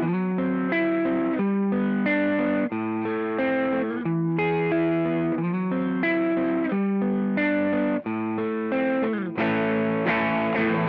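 Electric guitar played through a Joyo Vintage Overdrive pedal, a Tube Screamer-style overdrive, giving a warm, driven tone. The guitar plays a riff of chords and single notes, with a note sliding down near the end and then fuller ringing chords.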